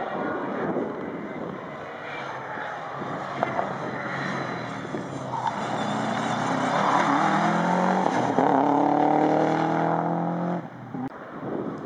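Subaru Impreza rally car's turbocharged flat-four engine accelerating hard past the spectators, its pitch climbing, over wind on the microphone. The engine sound cuts off suddenly about a second before the end.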